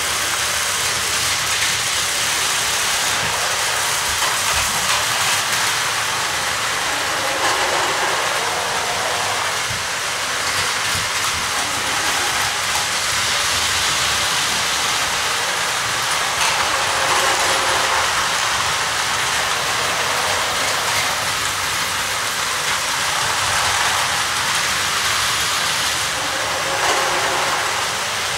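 Battery-powered Plarail toy trains running on plastic track: a steady whirring of their small motors and rattle of wheels on the track, swelling and fading several times.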